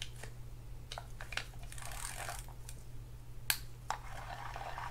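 A reassembled Penn Spinfisher 704Z spinning reel being cranked by hand as a post-service test: a soft whir of the turning rotor and gears, broken by a few sharp clicks from the handle and reel body, the loudest about three and a half seconds in.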